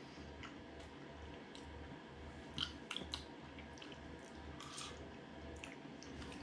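Faint mouth sounds of a man eating steak pie and gravy from a fork: soft chewing with a few small clicks, over a low steady hum.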